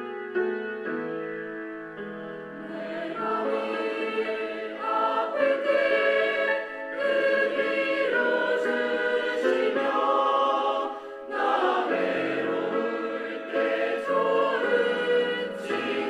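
Church choir singing a hymn with keyboard accompaniment; the voices come in about two and a half seconds in after a short keyboard passage.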